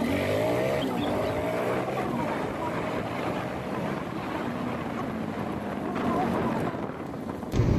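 Motorcycle engine running on the move, with wind rushing over the microphone.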